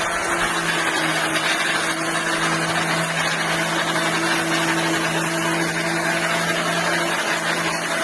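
Vintage Black & Decker twin-blade electric lawn mower running steadily, its motor giving an even hum over the whir of the spinning blades. The owner thinks the motor sounds like its bearing is loose.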